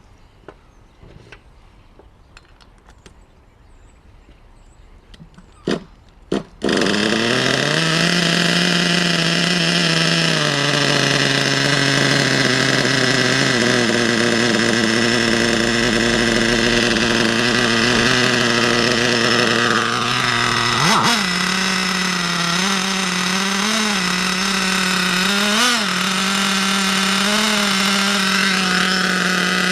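Nitro RC car glow engine starting: a couple of short pops, then it catches about a quarter of the way in and keeps running on its own, a high steady buzz. In the second half its pitch blips up briefly a few times. It now runs because the fuel blockage has been cleared, with a new glow plug and the needles adjusted.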